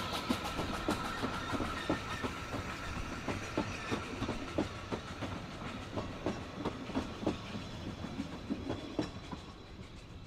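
Wheels of a 2 ft narrow gauge train's coaches clicking over rail joints as the coaches roll past, a clickety-clack over a steady rumble that fades as the last coach goes by.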